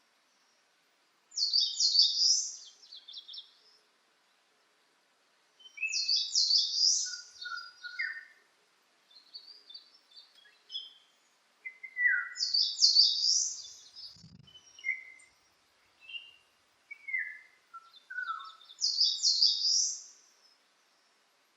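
A songbird sings a short, rapid, high phrase four times, about once every five to six seconds. Softer, lower whistled notes, some sliding down in pitch, fall between the phrases.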